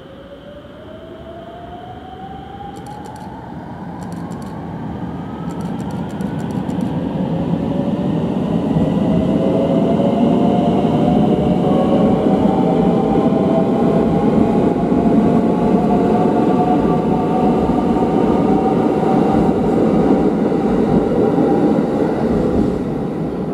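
A 521 series electric multiple unit pulls away and accelerates past: its motor whine rises steadily in pitch over the first several seconds, then several rising tones join it over the rolling rumble of wheels on rail, which grows loud as the cars go by and begins to fade near the end.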